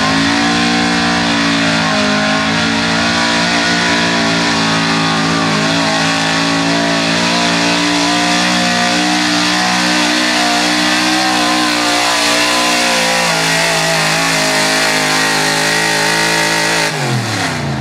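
Modified 4x4 Ford pickup's engine at full throttle under heavy load, pulling a truck-pull sled and held at high revs with a steady, slightly wavering note. About a second before the end the revs fall off sharply as the throttle is let off at the end of the pull.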